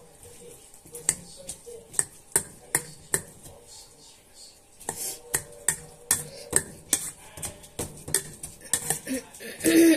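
Wire potato masher mashing cauliflower in a stainless steel bowl, its metal clinking against the bowl in sharp strokes about two to three a second, with a short pause a little before halfway.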